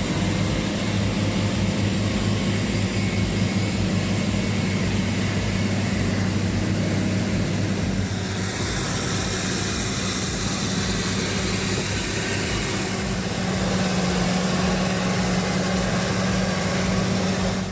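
Off-road truck engine running steadily under load, a continuous drone. About halfway through a higher hiss joins in.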